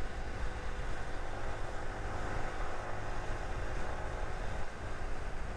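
Single-cylinder motorcycle engine running steadily while riding at cruising speed, with rumbling wind noise on the microphone.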